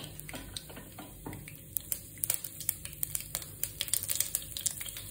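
Mustard seeds sizzling in hot coconut oil in a non-stick wok, with scattered sharp crackles that come more often toward the end as the seeds start to pop.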